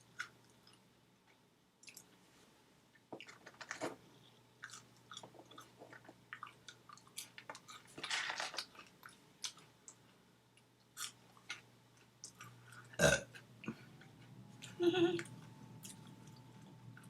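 Close-up chewing of McDonald's fast food, with scattered short mouth clicks and crunches. The loudest sound is a sharp crack about 13 s in, and a short pitched sound follows about two seconds later.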